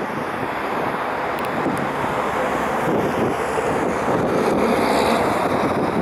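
Strong wind blowing across the microphone as a steady rushing noise.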